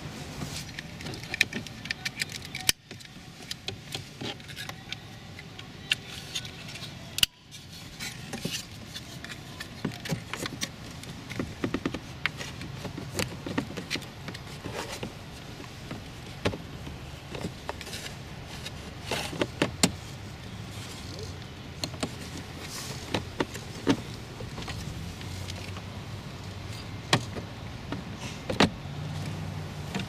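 Scattered clicks, taps and light rattles of hard plastic as a Toyota RAV4 power window master switch panel is handled and pressed back into the door armrest, over a steady low hum.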